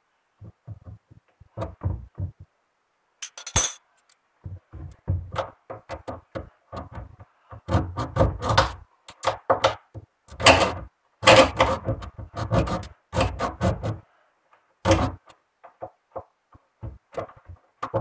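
Irregular clicks, knocks and rattles of hands working on the washing machine's wiring and plastic parts, close to the microphone, coming thickest in the middle stretch.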